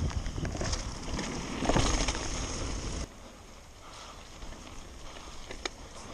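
On-board sound of a mountain bike descending a wet dirt trail: wind on the camera microphone and tyres rumbling over the ground, with rattles and knocks from the bike. The level drops abruptly about three seconds in, leaving a quieter rumble with a few sharp clicks.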